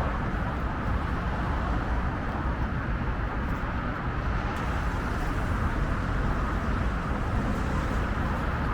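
Steady rumble of a moving vehicle on the road, with road and wind noise and no distinct engine note.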